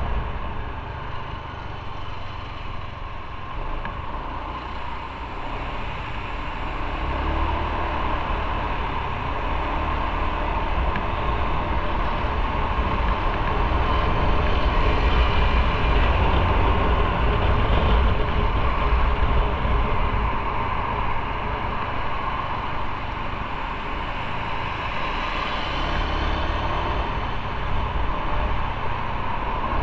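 Motorcycle riding on the road: engine running under a steady rush of wind and road noise, growing somewhat louder through the middle.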